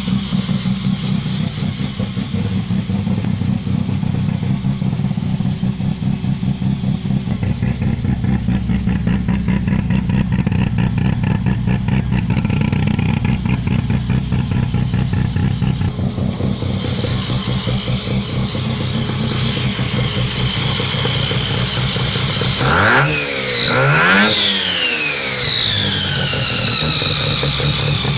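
Mazda 12A rotary engine idling with a rapid pulsing beat, then revved sharply twice about two thirds of the way in, the pitch shooting up and falling back after each blip.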